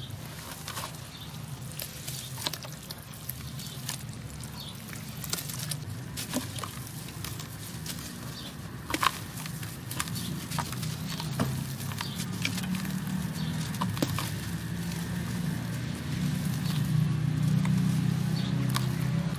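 Hands crushing and crumbling dry, crunchy earthen chunks in a steel bowl: a run of irregular crackles and crunches, with grit pattering onto the metal and a few sharper cracks, over a low steady hum.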